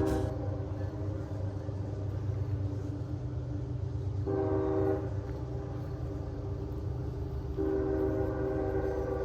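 Train horn blowing twice, a short blast and then a longer one, over a steady low rumble.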